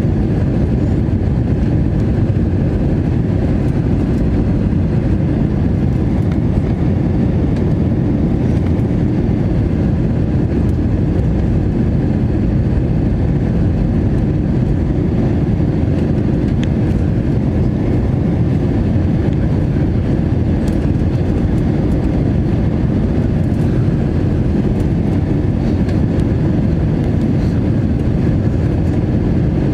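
Steady low rumble inside an Airbus A321 airliner's cabin during the descent to landing: engine and airflow noise, even in level, with a faint steady hum above it.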